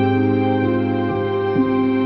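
Slow instrumental music: long held chords over a steady low bass note, with new notes coming in softly partway through.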